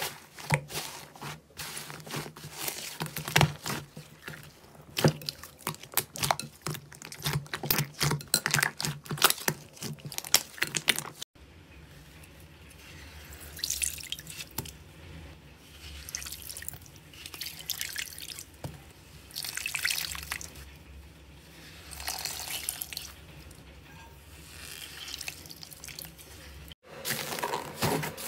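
Hands squeezing and kneading slime, making sticky wet popping, crackling and squelching. First comes a dense run of sharp pops from bubbly, air-filled slime. After a cut about 11 seconds in, the sound is softer and wetter as clear glitter slime is squished in cupped hands. Quick crackling returns after another cut near the end.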